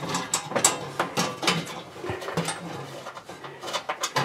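A screwdriver backing a screw out of the sheet-metal igniter mount inside a gas oven: irregular metallic clicks and short scrapes.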